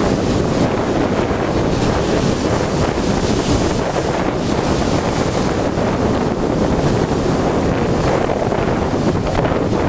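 Strong wind buffeting the microphone over heavy storm surf breaking on the shore. A loud, steady wash of noise with no single wave crash standing out.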